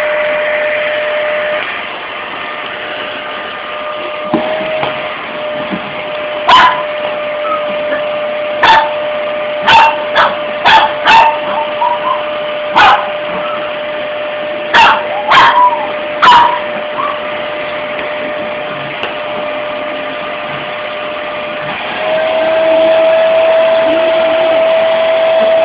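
A shih tzu barks at a running vacuum cleaner, about ten short, sharp barks between roughly six and sixteen seconds in, over the vacuum motor's steady whine. Near the end the vacuum's whine rises in pitch and gets louder.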